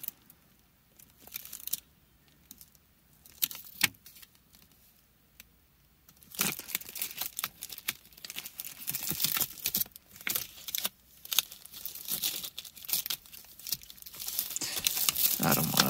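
Thin plastic coin sleeves and loose plastic packaging crinkling as silver rounds are handled in them. A few light clicks fall in a quieter first stretch, then steady crinkling from about six seconds in.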